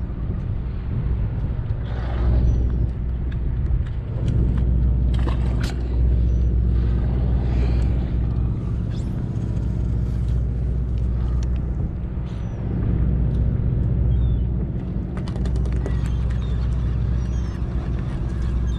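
Fishing boat's engine running steadily with a low drone, with wind and water noise over it. A few faint, short high chirps come now and then, and bursts of light clicking come late on.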